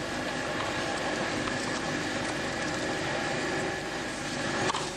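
Steady outdoor background rumble with a faint hum, and one sharp tennis-ball strike off a racket near the end.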